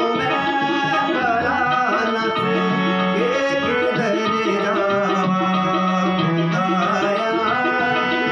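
A man singing a devotional song in Urdu or Punjabi to his own harmonium; the reeds hold steady chords under the sung melody.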